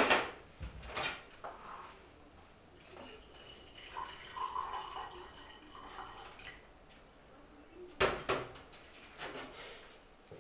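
Tea being made: sharp clinks and knocks of mugs and crockery on a kitchen counter, with a short spell of water being poured about halfway through.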